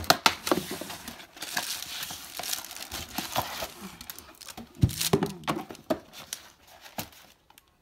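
Cardboard boxes handled and opened by hand: flaps rustling, scraping and crinkling, with scattered knocks and a couple of louder thumps. It dies away near the end.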